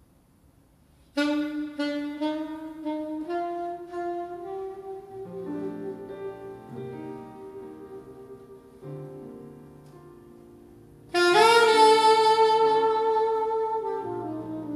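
Alto saxophone playing a jazz phrase: after a second of near silence it comes in with a run of short notes stepping upward, softens, then swells into a loud long held note that falls away near the end. Quiet piano accompaniment sounds beneath.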